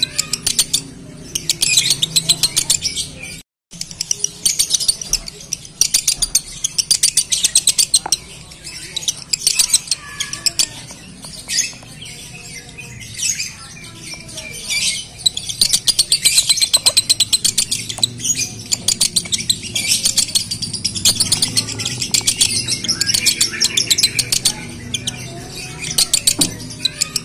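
Male Fischer's lovebird singing in its breeding mood, in the fast stuttering 'konslet' style: long runs of rapid high chattering chirps broken by short pauses.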